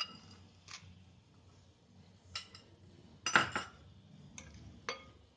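A metal spoon clinking and tapping against bowls as boondi is tipped into a bowl of pani puri water: about six short clinks, the loudest about three and a half seconds in.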